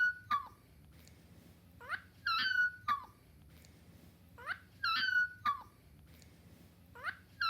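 A dog yawning with a squeaky voiced whine, the same yawn coming about every two and a half seconds: each a quick rising squeak, a held high whine, then a short falling note.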